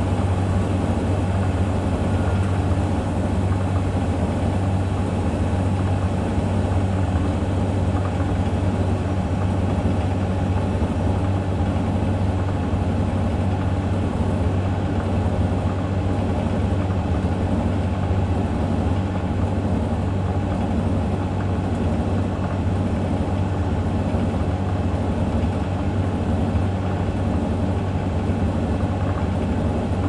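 A Samsung front-loading washing machine and a Hoover Vision Tech tumble dryer running side by side, making a steady low mechanical hum as their drums turn.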